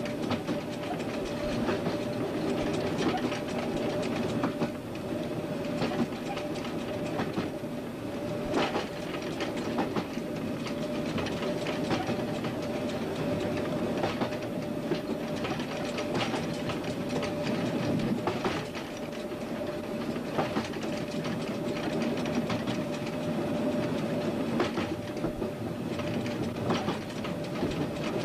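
Train running steadily along the track, heard from the front of the train: a continuous rumble with a constant steady tone and occasional clicks of wheels over rail joints.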